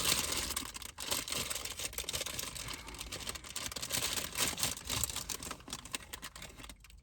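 Rustling and crackling handling noise with many small clicks, as the caramel apple and its wrapping are handled. It stops near the end.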